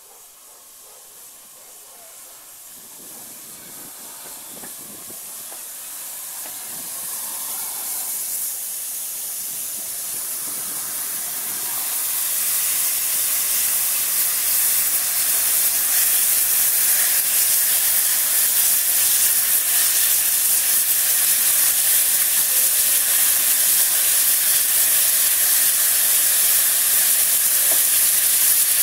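Pannier tank steam locomotive giving off a steady hiss of steam. It grows steadily louder over the first half as the engine comes alongside, then holds loud and even.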